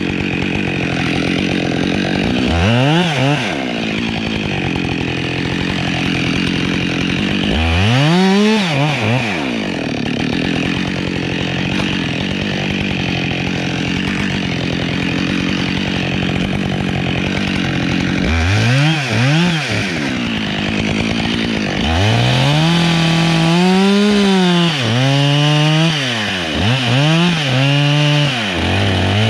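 Husqvarna 572XP two-stroke chainsaw idling, revved up and dropped back to idle several times: single blips about 3, 8 and 19 seconds in, then a quick run of repeated revs over the last several seconds.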